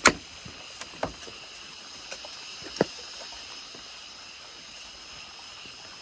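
Scattered light clicks and knocks of cooking utensils: a sharp one right at the start, then a few softer ones in the first three seconds, over a steady high hiss.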